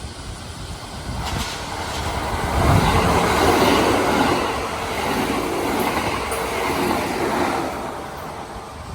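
Kintetsu electric train passing at speed, its wheels rumbling and clattering on the rails. The sound builds from about a second in, is loudest around three to four seconds in, and fades by near the end.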